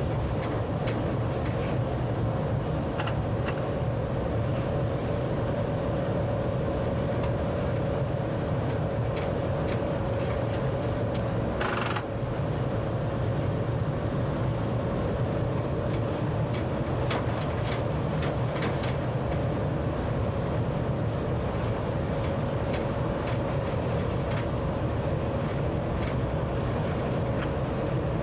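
Train running at speed heard from the driver's cab: a steady low rumble with a constant whine over it and scattered light ticks from the wheels on the track. A brief hiss cuts in about twelve seconds in.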